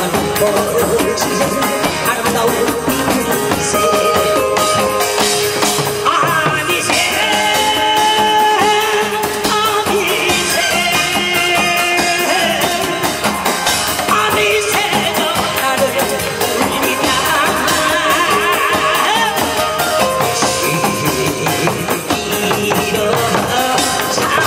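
A man sings a Korean song through a microphone and PA over Korean folk percussion: janggu hourglass drum and barrel drums beaten in a steady rhythm.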